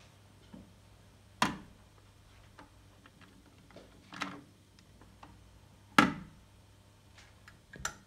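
Mechanical clicks of a Sankyo STD-1800 cassette deck being unloaded. A sharp clack as the eject key pops the cassette door open, a softer rattle about three seconds in as the cassette is lifted out, then the loudest clack as the door is pushed shut, and a last click near the end. A faint low hum runs underneath.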